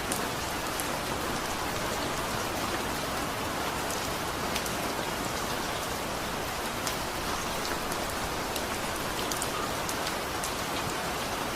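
Steady rain falling: an even hiss with scattered sharp drop ticks, as a sleep sound.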